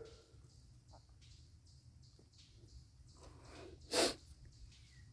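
A single short, sharp snort-like blow of breath about four seconds in, just after a softer intake of breath.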